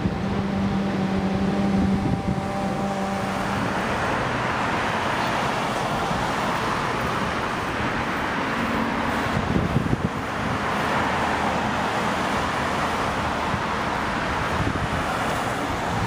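Road traffic: a vehicle engine's steady hum at first, then a rush of tyre noise swelling and fading as cars go by.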